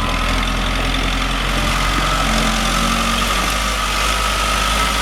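Case 580SM backhoe loader's diesel engine running steadily at idle.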